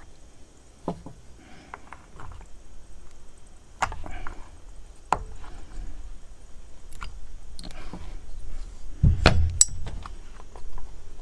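Handling sounds on a partly dismantled STIHL 028 AVS chainsaw: scattered clicks and knocks of hands, tools and small parts against the saw's casing, then a heavier thump with sharp clicks about nine seconds in as the saw is turned over onto the table.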